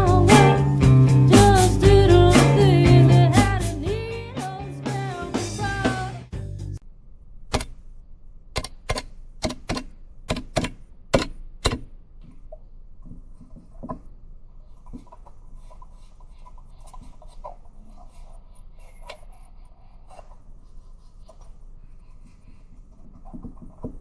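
Music with singing and guitar that cuts off abruptly about seven seconds in. A run of about a dozen sharp clicks follows, then only faint background noise.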